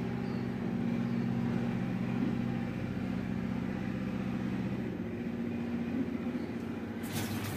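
A steady low mechanical hum, like a small motor running, is the loudest sound, over a pan of milk-based egg korma gravy simmering down. Near the end there is a brief clatter.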